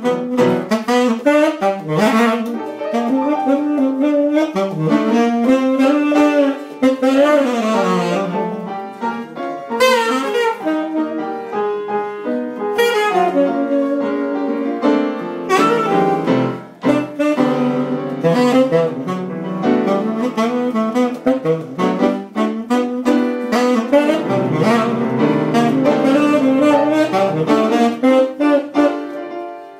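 Tenor saxophone playing a jazz solo, a quick-moving melodic line of many short notes and runs.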